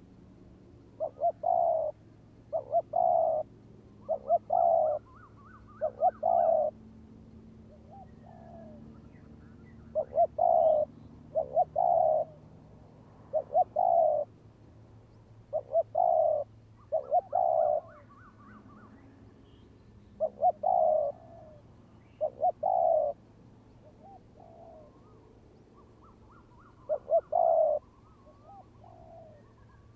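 Spotted doves cooing: short phrases of two or three rolling coos, repeated every couple of seconds, with some near and loud and others fainter between them. These are typical of a decoy dove and a wild dove calling back and forth.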